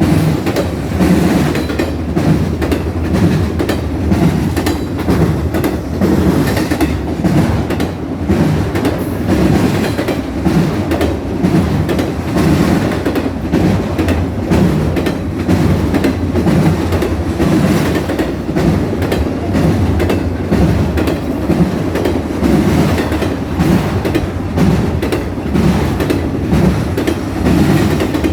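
Train passing at speed close by: a steady, loud rumble with the wheels clattering over the rail joints in an even rhythm of roughly two beats a second.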